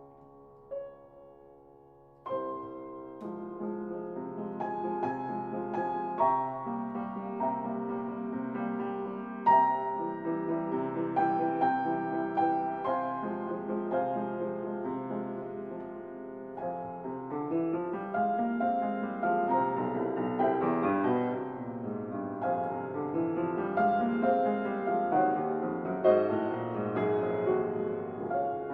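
Soft background piano music, quiet for the first couple of seconds, then fuller and busier.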